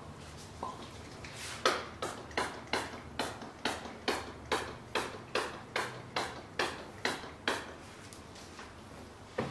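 Spray bottle squirted about fifteen times in quick succession, a little over two squirts a second, each a short hiss. The squirts stop about seven and a half seconds in.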